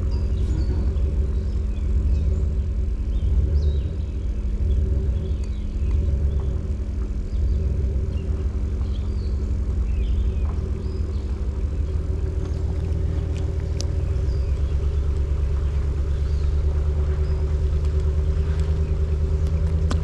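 A vehicle engine running steadily, with its pitch dropping slightly about twelve seconds in.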